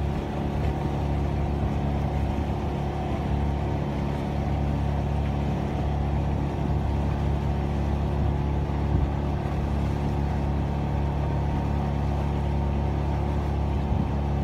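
Boat engine running steadily at a constant speed, a low even drone with no change in pitch.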